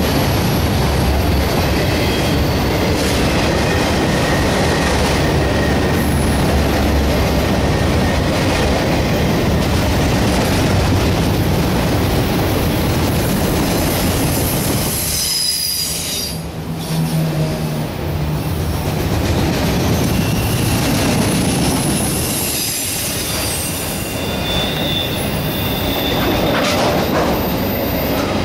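Freight train autorack cars rolling past at close range: a steady loud rumble of steel wheels on rail, with thin high wheel squeals coming and going. Twice, about halfway through and again a few seconds later, the noise briefly drops.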